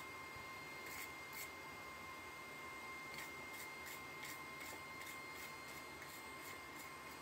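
Steel wire brush scrubbing a twisted mild-steel bar clamped in a vise: a run of faint, scratchy strokes, a few at first, then about three a second from about three seconds in.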